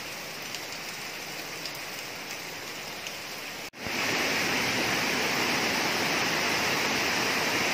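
Steady rushing noise of falling or running water, with a few faint ticks; it cuts off suddenly about four seconds in and comes back louder and brighter.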